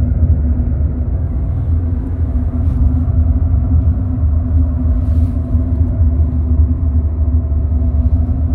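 Steady low drone of road and engine noise inside a moving car, with an even hum and no breaks.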